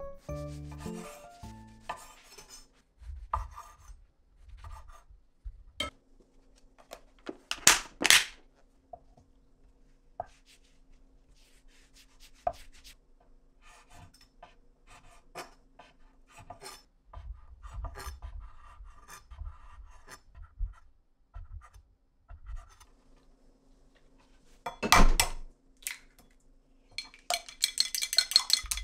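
Kitchen sounds of food being prepared: scattered knocks and scrapes of utensils against dishes and cookware, with two loud sharp knocks about eight seconds in and another about twenty-five seconds in. A faint steady hum comes and goes in between, and near the end a quick run of clinks sets in.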